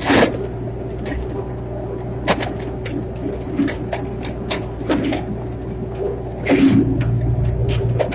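Excavator engine running steadily, with sharp clanks and knocks every couple of seconds from the machine working, and the engine getting louder for the last second or so.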